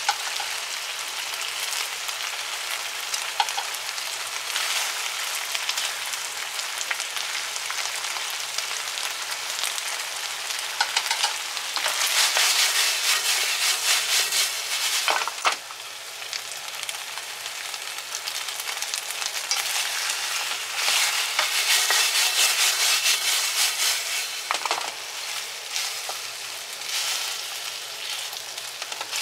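Chicken wings sizzling in a frying pan as a soy, sake and honey glaze reduces almost dry. The sizzle is louder for two stretches of a few seconds, the first while the pan is shaken over the gas flame, and a short knock comes in between.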